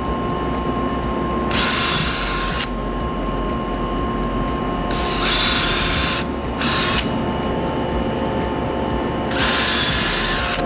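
Cordless drill boring pilot holes into a polyethylene tank wall: the motor runs steadily, with four short louder spells of cutting hiss as the bit goes through, about 1.5, 5, 6.5 and 9.5 seconds in.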